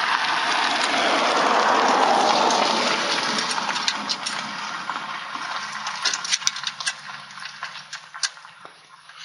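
A passing vehicle swells and fades over the first few seconds. It is followed by scattered light clicks and taps of hands fitting nuts onto the address plaque's screws inside the mailbox.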